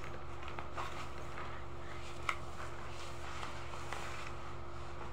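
Faint rustling and a few light taps from cloth being handled, over a steady low background hum; the sharpest tap comes about two seconds in.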